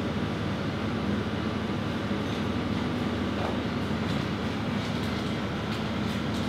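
Steady mechanical hum and rush of kitchen machinery, with a few faint light clicks.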